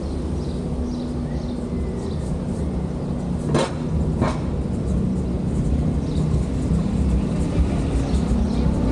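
A steady low engine rumble with small birds chirping high above it, and two sharp knocks less than a second apart near the middle.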